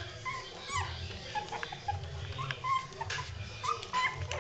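Shih Tzu puppies whimpering and yipping: many short, high squeaks in quick succession.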